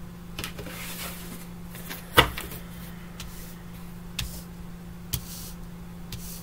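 Tarot cards being handled: a few light taps and brief rustles, the sharpest tap about two seconds in, over a steady low electrical hum.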